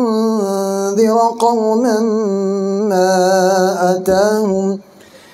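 A man chanting Quranic recitation in prayer, in a melodic style: long drawn-out held notes with ornamented turns of pitch. The voice stops a little before the end.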